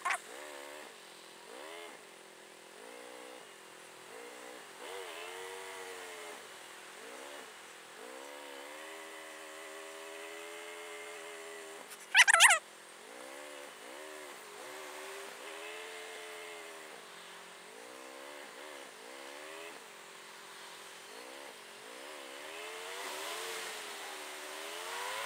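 2009 Kawasaki ER-6n's parallel-twin engine revving up and down again and again in stop-and-go riding, sped up by fast-forward playback so the pitch swings are quick and high. About twelve seconds in there is one short, loud, high-pitched squeal.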